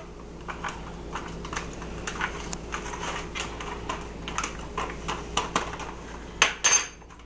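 A metal spoon stirring freeze-dried food rehydrating with boiling water inside a Mountain House foil pouch: a run of small irregular scraping clicks and crinkles. Near the end comes a louder clatter with a brief metallic ring as the spoon is set down on the counter.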